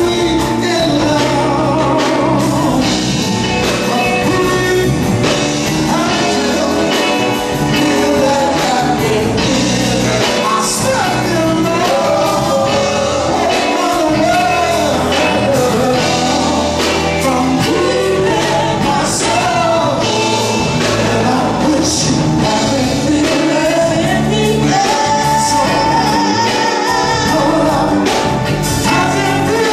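A man singing into a handheld microphone over backing music with a steady beat.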